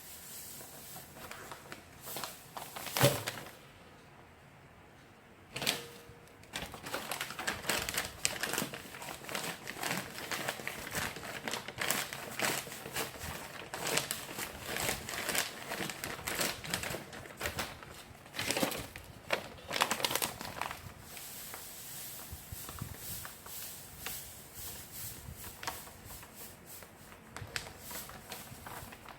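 Plastic bag crinkling and rustling as it is handled, in an irregular crackle with sharp clicks. There is one loud knock about three seconds in, then a brief lull. The handling is densest through the middle.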